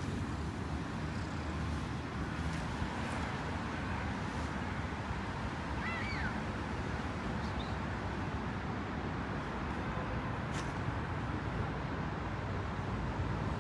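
Steady outdoor background rumble, typical of distant traffic, with one short high chirp about six seconds in.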